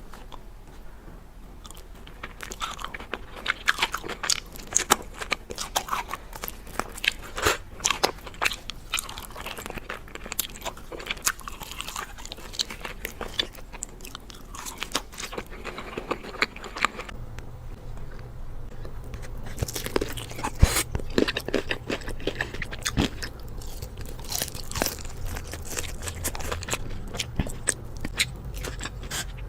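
Biting and loud crunching of crispy fried Wingstop chicken wings and fries, with chewing between bites. A steady low hum comes in about two-thirds of the way through.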